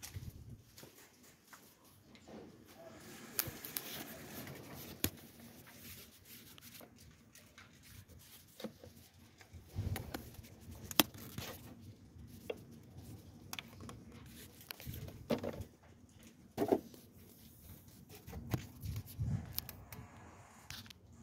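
Scattered handling noises: light clicks, taps and rustles, with one sharp click about eleven seconds in.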